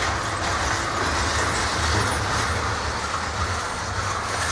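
Steel wheels of a freight train's double-stack container well cars rolling past on the rails, a steady, unbroken running noise.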